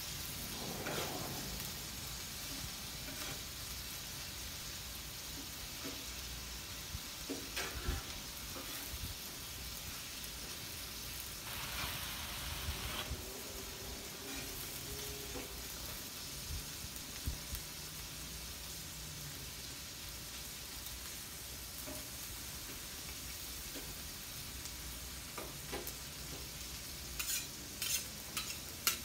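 Ground beef and corn sizzling steadily on a Blackstone flat-top griddle, with spatulas stirring the food and now and then clicking and scraping against the steel surface, a few times in quick succession near the end.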